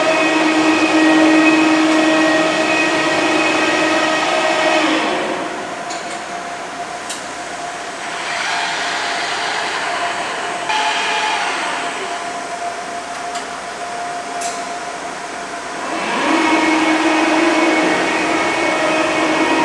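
Ford-class carrier weapons elevator running: a steady electric hum with a high whine over it. The hum drops away about five seconds in, leaving a lower machinery drone, and comes back about sixteen seconds in.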